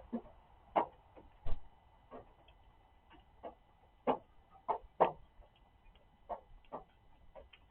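Rain drops dripping and tapping irregularly onto a hard surface, a dozen or more single drips of varying loudness with uneven gaps between them.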